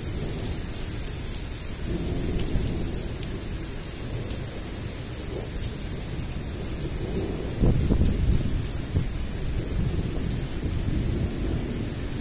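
Heavy rain falling steadily, with thunder rumbling low throughout and a louder peal of thunder about eight seconds in.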